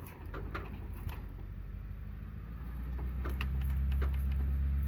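Vehicle engine running under load as the vehicle moves ahead, getting louder about halfway through and then holding a steady low drone, with a few scattered clicks and knocks.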